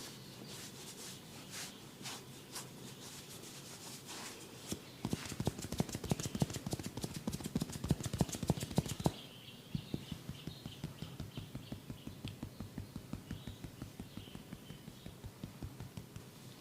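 Percussive massage tapping on a client's head and body: a few scattered taps, then about four seconds of fast, loud drumming strokes, then a steady run of softer taps at about four or five a second.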